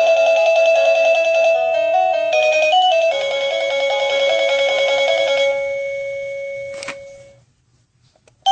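Sadotech Model C wireless doorbell chime playing an electronic multi-note melody, which dies away past the middle. A single click follows, then a brief silence, and a new tune begins right at the end.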